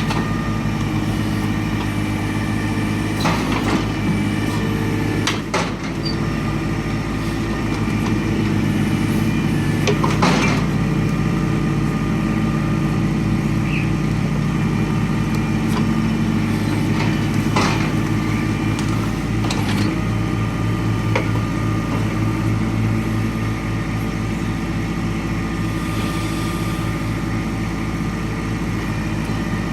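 John Deere 2320 compact tractor's three-cylinder diesel running steadily while working the John Deere 46 backhoe, with several sharp metallic knocks from the backhoe along the way.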